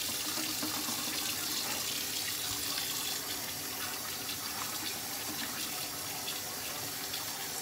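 Kitchen faucet running, a steady stream of water splashing into the sink.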